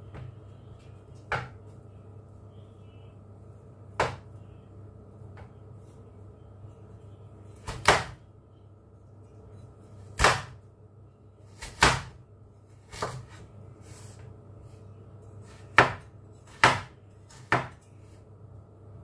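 Chinese cleaver chopping carrot on a cutting board: about ten separate sharp knocks at an unhurried, uneven pace. A steady low hum runs underneath.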